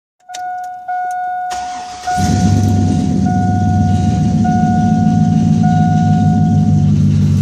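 A 2001 Chevy Silverado is started: a few clicks, the starter cranks about a second and a half in, and the engine catches at about two seconds and settles into a steady, loud idle. Through all of it a single-tone warning chime in the cab sounds over and over, each beep about a second long, and stops near the end.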